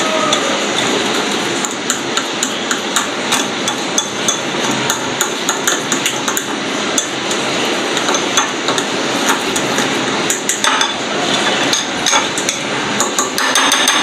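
Spoon beating thick gram-flour batter in a glass bowl, with rapid, irregular clicks of the spoon against the glass and the wet churning of the batter.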